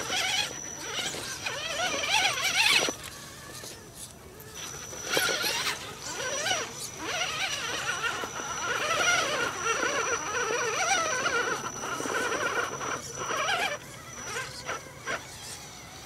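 Radio-controlled scale rock crawler's electric motor and gearing whining as it climbs over rocks, the pitch wavering up and down with the throttle over a thin steady high tone. The whine drops away for a second or so about three seconds in, and again near the end.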